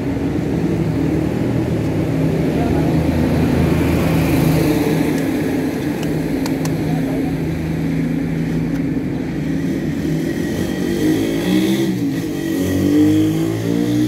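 A motor vehicle engine running steadily, its pitch wavering up and down in the last few seconds as it is revved.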